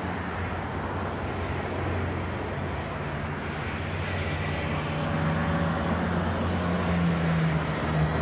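Boeing 747-400F freighter's four jet engines on final approach: a low drone that grows steadily louder as the jet comes nearer, with a faint thin whine near the end.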